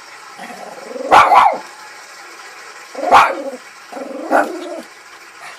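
A pet dog barking: two quick barks about a second in, then single barks at about three and about four and a half seconds.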